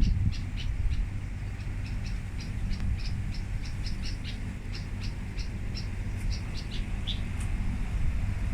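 Short, high-pitched chirps repeating several times a second at an uneven pace, over a steady low rumble.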